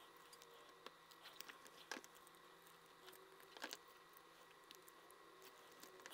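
Near silence with faint, scattered clicks and rubbing of wire leads being fed through a small circuit board, with slightly louder ticks about two seconds in and again near the middle.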